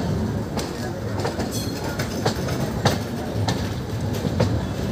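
A passenger train heard from inside a moving coach: the steady rumble of the wheels on the rails, with irregular sharp clicks as the wheels cross rail joints.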